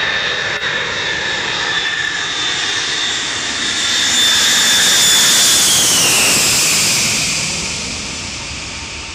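Boeing 707 jet engines passing low overhead on approach: a loud, steady jet noise with a high whine that slides down in pitch about six seconds in as the aircraft goes by, then fading.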